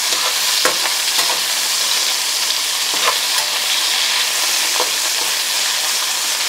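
Sliced kielbasa sizzling steadily in avocado oil in a wok as it browns and renders its fat, while a slotted spatula stirs and turns the pieces. A few short scrapes and taps of the spatula on the pan stand out from the hiss.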